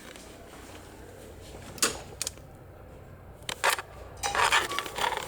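A few sharp metallic clicks and clanks of a payphone handset being handled and lifted off its hook, the loudest pair about three and a half seconds in.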